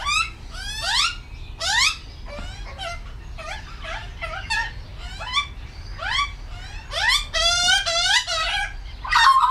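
Juvenile Australian magpie begging at a feeding, a steady run of rising, squawking calls, roughly two a second.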